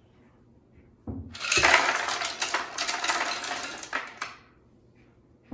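Ice cubes poured from a glass bowl into a blender jar, clattering and clinking for about three seconds, starting about a second in.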